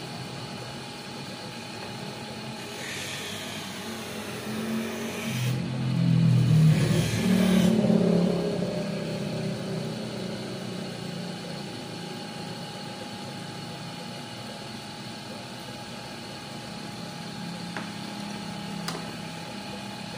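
Optical hand edger's motor and grinding wheel running with a steady whine while an eyeglass lens is held against the wheel to smooth its edge. The sound swells louder for a few seconds about five to eight seconds in.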